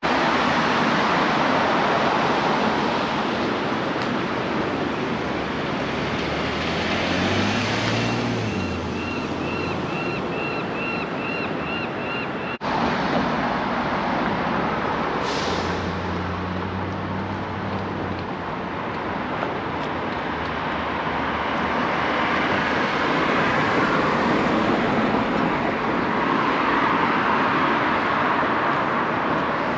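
Steady street traffic noise with heavy vehicle engines passing. A run of quick, high, repeating chirps sounds for about four seconds near the middle, and the sound briefly drops out partway through.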